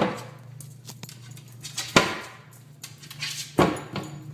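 Kitchen cabinet door banging three times as a small dog paws it open, each loud knock with a short ringing tail, the knocks about two seconds and then a second and a half apart. A low steady hum runs underneath.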